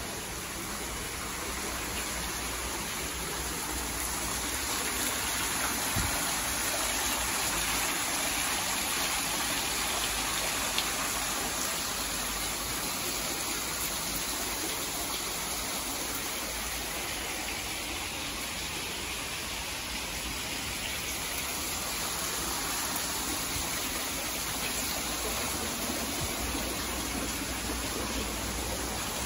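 Steady rushing of running water, an even hiss-like wash that holds at one level throughout.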